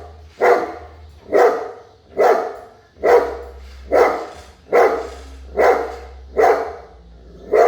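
Big dog barking steadily, about nine deep barks evenly spaced a little more than one a second.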